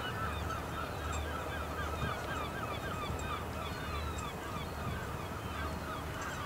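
A flock of waterbirds calling: many short, overlapping calls, several a second, each bending up and down in pitch, over a low steady rumble.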